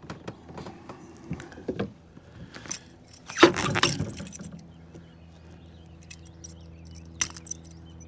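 Small largemouth bass being handled and unhooked from a buzzbait: scattered metallic rattles and clicks of the lure and hooks, with a louder thrash about three and a half seconds in.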